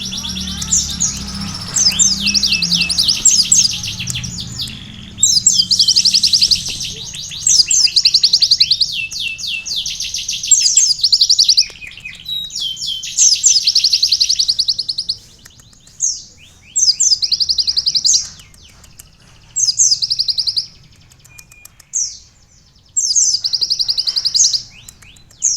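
Kolibri ninja sunbird singing canary-style song: fast, high trills in bursts of about a second with short gaps between them, the phrases coming further apart in the second half.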